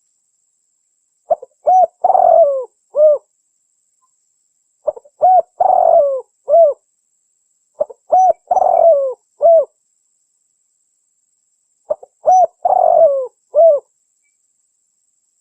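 Spotted dove cooing: four phrases, each two or three short coos, a longer rolling coo and a final coo, repeated every three to four seconds. The uploader offers it as a female's call used to lure males.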